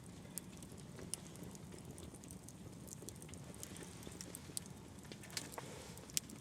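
Wood campfire crackling, with scattered sharp pops and snaps over a low steady hiss; the loudest pop comes near the end.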